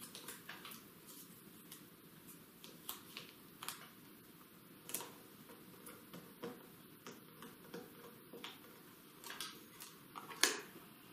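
Faint, scattered clicks and taps of hands handling paper cards and double-sided tape, pressing a card down flat; the loudest tap comes near the end.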